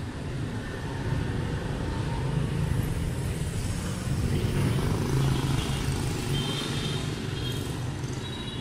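Street traffic dominated by motorbikes: scooter engines running and passing, with a steady low engine hum throughout.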